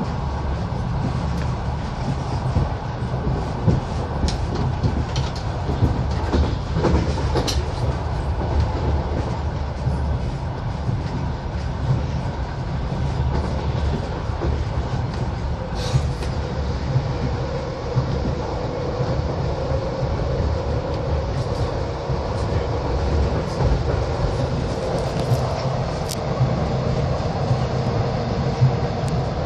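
Passenger train carriage heard from inside a sleeper compartment while under way: a steady low rumble of the wheels on the track, with occasional sharp clicks and a faint steady hum joining about halfway.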